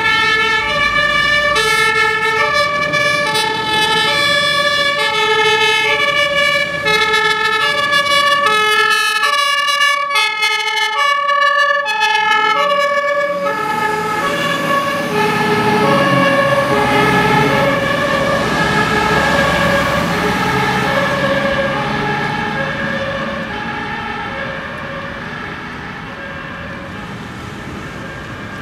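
German fire engine's two-tone Martinshorn siren sounding, the two pitches alternating steadily. The truck passes close about halfway through, its engine and tyre noise rising under the siren, and the siren then fades as it moves away.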